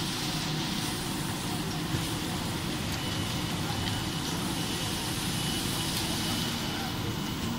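Steady machinery noise of a running puffed rice-crispy cereal production line, with its mesh conveyor carrying the puffed pieces, a low rumble under a hiss. A faint high whine joins about three seconds in.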